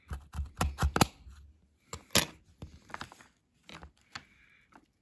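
Knife blade cutting through a crisp chocolate-filled sandwich biscuit: a quick run of sharp crunching cracks in the first second, then one louder crack about two seconds in and scattered small crackles as the biscuit breaks apart.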